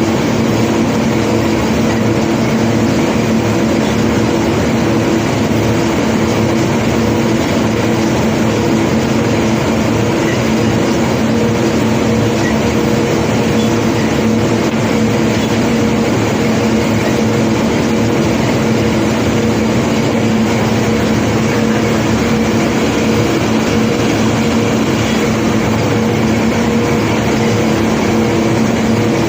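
Heavy diesel unloading machinery running at a steady pitch, a constant hum over an even rumble, with no separate knocks of stone.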